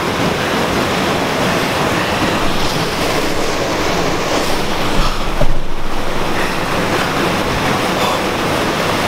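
Creek water rushing over rocks, a steady loud hiss close to the microphone. A brief low thump about five seconds in.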